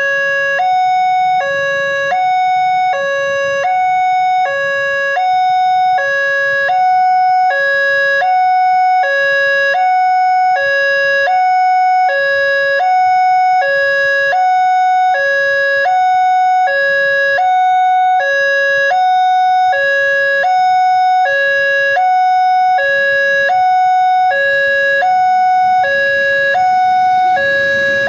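Railway level-crossing warning alarm: an electronic two-tone signal alternating between a lower and a higher note about once a second, sounding while the barrier is down to warn that a train is approaching.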